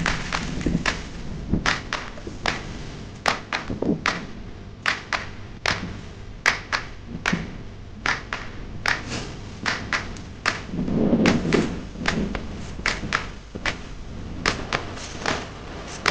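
Irregular sharp knocks and thuds, a few each second, over a low rumble, with a denser, heavier stretch of thuds about two-thirds of the way through.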